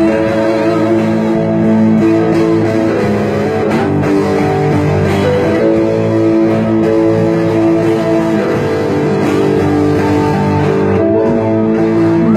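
Live band playing an instrumental break with no singing, a guitar carrying the melody over bass.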